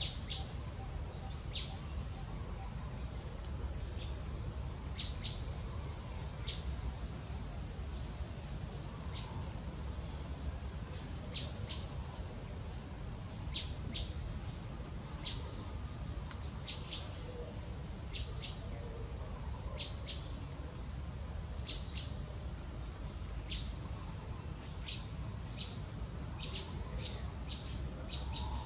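Outdoor insect and bird ambience: a steady high-pitched insect drone on one unbroken tone, with short bird chirps every second or two, often in quick pairs, over a low steady rumble.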